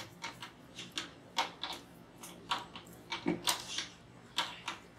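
Scattered light clicks and short scratchy taps at irregular intervals, a few a second: tabletop handling noise from a long spoon stirring a plastic pitcher of lemonade and a marker writing on a sign.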